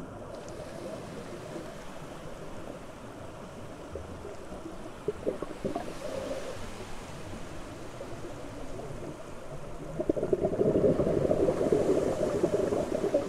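Underwater ambient noise picked up by a submerged camera: a steady low rushing with scattered crackles. It grows louder and rougher about ten seconds in.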